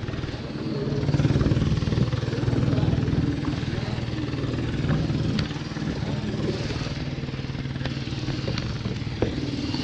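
A boat engine running steadily, a low drone, with a few light knocks scattered through it.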